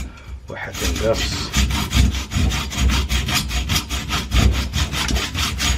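Hacksaw cutting back and forth through the aluminium winding wires of a washing machine motor, in quick, even strokes that break off briefly at the start.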